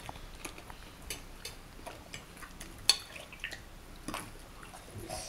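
Scattered light clinks and taps of cutlery against plates and dishes, with one sharper clink about three seconds in.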